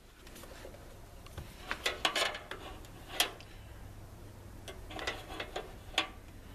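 Handling noise: a few scattered light knocks and scrapes as a plastic CPAP machine is set and shifted against a sheet-steel drawer, over a faint steady low hum.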